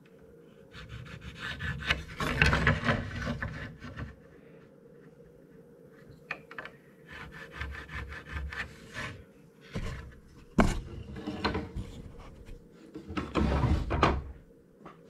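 Wooden boards scraping and rubbing against one another in irregular bursts, with a sharp knock a little past the middle, as a diagonal brace board is worked into place on a plank door.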